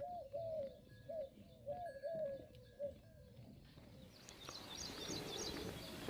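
A dove cooing: a soft run of short, repeated, rounded coos for the first three seconds or so. After that comes faint high chirping of small birds over a light outdoor hiss.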